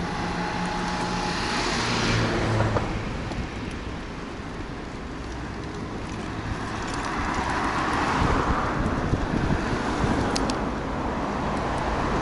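Road traffic on a wet road: motor vehicles passing with tyre hiss, swelling about two seconds in and again near the end, with an engine hum early on.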